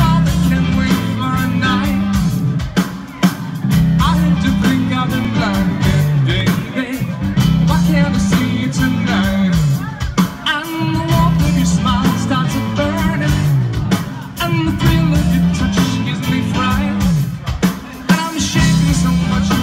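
Live rock band playing loudly: a male singer over drums, electric guitar and a bass line that repeats and slides down in pitch.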